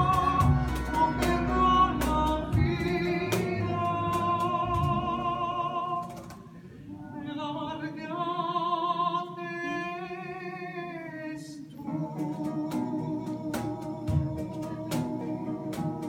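A countertenor sings a Ladino song in long held notes with wide vibrato over a small acoustic ensemble of violin, cello, double bass and plucked strings, with a tapping rhythm. About six seconds in the accompaniment falls away, and he holds one high note with strong vibrato for about four seconds before the instruments come back in.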